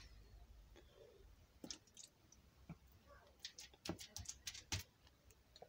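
Near silence, broken by a few faint, short clicks and light handling noises, scattered through the middle and later part.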